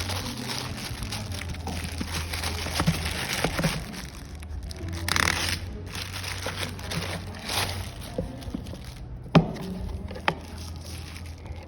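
Product packaging being handled and opened, crinkling and rustling, with two sharp clicks about a second apart near the end.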